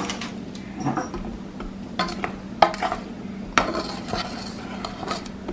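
Metal spoon clinking and knocking against a saucepan as syrup-soaked fried sweets are stirred and scooped, with a few sharp knocks between about two and four seconds in.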